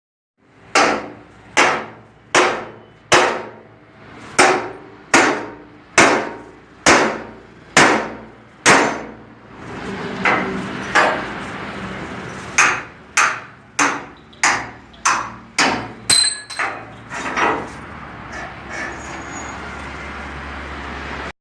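Hammer blows on metal with a ringing after each strike: a steady run of about eleven blows just under a second apart, then, over a steady background noise that starts about halfway through, a second run of quicker blows that dies away near the end.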